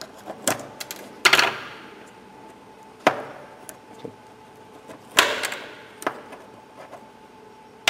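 Sharp metal clicks and taps from a Renault Logan trunk lock cylinder being pried at with a small screwdriver to remove its rear retainer. Several separate clicks, the two loudest about a second in and about five seconds in, each with a brief ring.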